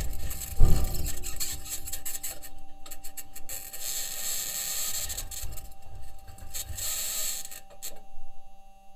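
Perseverance Mars rover driving, picked up by its entry, descent and landing microphone: knocks and rattles from the wheels and suspension on the ground, a heavy thump under a second in, and stretches of high-pitched scratching over a faint steady tone. The scratching is of uncertain origin: it may be electromagnetic interference from one of the rover's electronics boxes or the mobility system rubbing against the surface.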